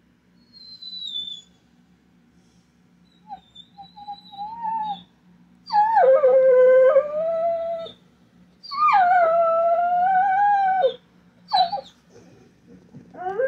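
Dog whining, then howling twice in long howls of about two seconds each, with short yelps near the end. It is howling for its absent owner, from separation distress.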